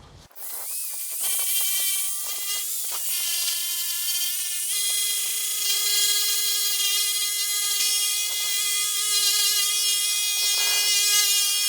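Orbital polisher with a microfiber cutting pad running, buffing cutting compound into a sanded headlight lens to take out the sanding scratches. A steady electric-motor whine whose pitch drops about three seconds in and rises again about a second and a half later.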